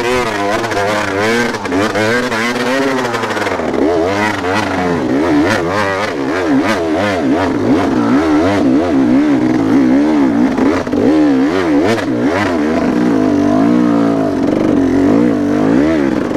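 Dirt bike engine revving up and down again and again as the throttle is worked, the pitch rising and falling every second or so and steadying somewhat in the second half.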